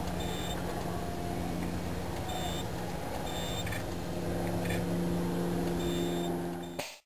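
Steady mechanical hum from a KA-TE pipe-repair robot's machinery, growing slightly louder about four seconds in, with short high beeps every one to two seconds; it cuts off abruptly near the end.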